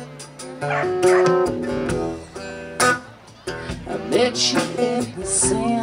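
Acoustic guitar played live, strummed and picked, with a voice singing over it in places.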